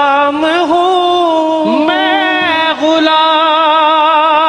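A man singing a manqabat, an Urdu devotional song, alone. He holds long notes with a wavering vibrato and slides between pitches about half a second in, near two seconds and near three seconds.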